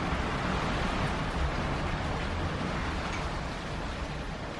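Rain falling with wind: a steady rushing hiss that eases slightly in the second half.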